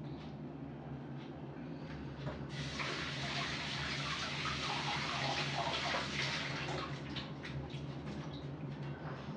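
Water running from a kitchen tap for about four seconds, starting suddenly a couple of seconds in and tapering off, over a low steady hum, with a few small clicks afterwards.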